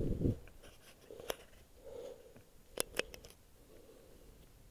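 Handling noise while gear and soil are worked by hand: a dull thump at the start, then scattered scrapes and a few sharp clicks.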